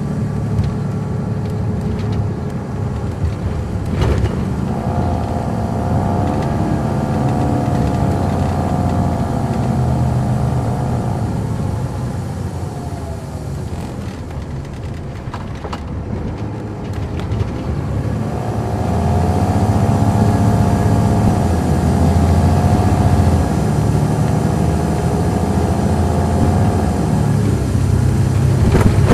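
Caterpillar C13 ACERT diesel engine of a 2007 MCI D4500CL coach, heard from on board, running under load. A whine rides over the engine, climbing and falling away twice. The engine grows louder for the last third, and there is a sharp knock a few seconds in.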